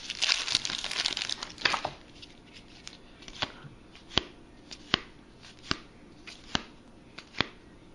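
Foil card-pack wrapper crinkling and tearing for about two seconds, then baseball trading cards being flicked through one at a time, a sharp snap about every second.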